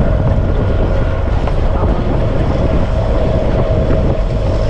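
4WD vehicle driving on a dirt road: steady engine and tyre noise with a low drone that never lets up.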